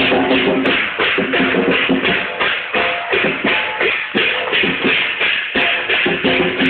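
Loud drum-led music with a steady, fast beat of about three hits a second over sustained pitched tones.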